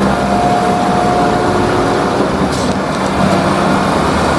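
Diesel engine of a MAN concrete mixer truck running steadily as the truck drives and turns, with even road noise.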